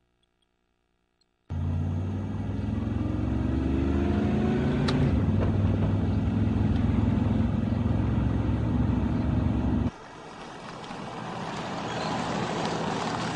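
After about a second and a half of near silence, a car engine comes in suddenly and runs, its pitch rising for a couple of seconds as it accelerates. About ten seconds in the sound cuts abruptly to a quieter car approaching on a dirt road, growing steadily louder.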